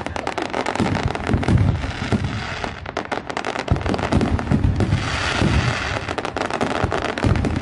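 A barrage of aerial fireworks shells bursting, many sharp reports packed close together over deeper thuds, with no break.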